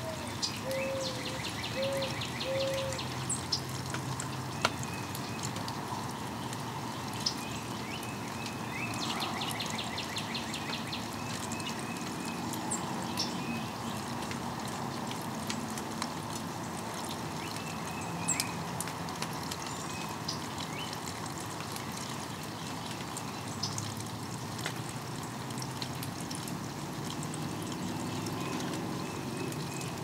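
Steady rain with water dripping and pattering, and birds calling over it: a fast high trill near the start and again about nine seconds in, with a few short low notes near the start.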